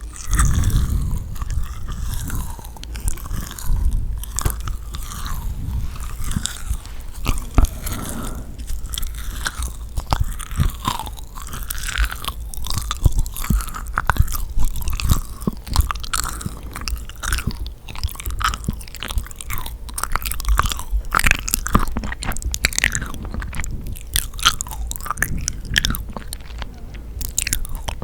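Close-miked chewing and biting of yakgwa, the sticky, honey-soaked Korean fried cookie. It is a steady run of many short, sharp sticky clicks and smacks as the dough is chewed.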